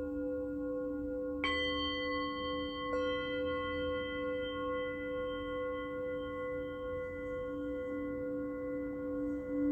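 Singing bowls ringing. A low tone and a mid tone sustain throughout. A higher bowl is struck about a second and a half in and another about three seconds in, and their ringing overtones layer over the low tones and slowly fade. The low tone pulses slowly near the end.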